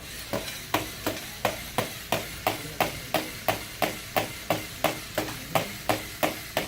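LEGO Mindstorms NXT walking robot, driven by a servo motor, clacking its plastic parts on a glass surface in an even rhythm of about three knocks a second.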